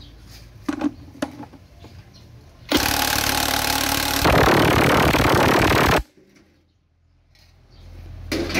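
Cordless DeWalt impact wrench hammering on the gear-shaft nut of a manual transaxle for about three seconds, getting louder partway through and then stopping abruptly. A few light metal tool clicks come before it.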